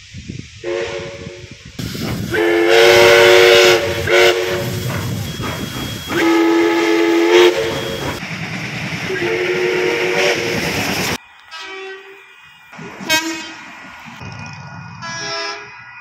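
Steam locomotive 5917's whistle blown in about five blasts, several tones sounding together, the longest and loudest about three seconds and six seconds in. After about eleven seconds it gives way to a few short, quieter toots from a train horn.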